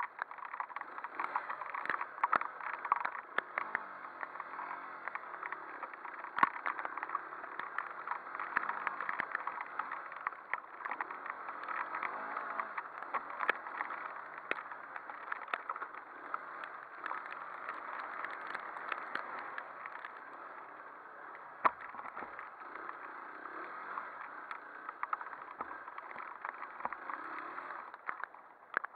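Motorcycle engine running as the bike rides over a rough, muddy grass track, its pitch rising and falling with the throttle, with frequent knocks and rattles from the bike bouncing over ruts; the sound is muffled.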